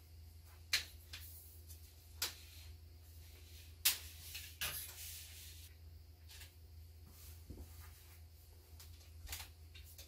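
A few sharp clicks and knocks of a DSLR camera and tripod being handled and adjusted, the loudest about four seconds in, over a faint steady low hum.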